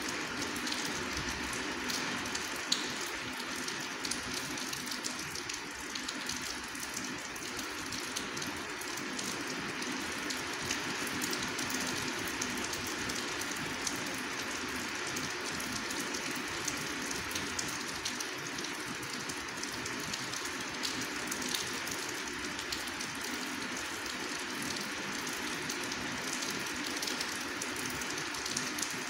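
Steady rain falling: an even hiss scattered with many small drop ticks.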